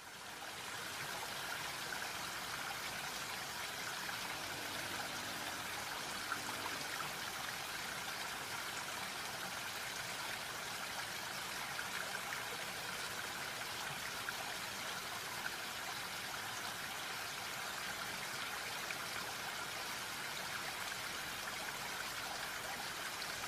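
Water gushing steadily from a hand-pump spout, splashing onto a pot and a concrete slab. It fades in at the start.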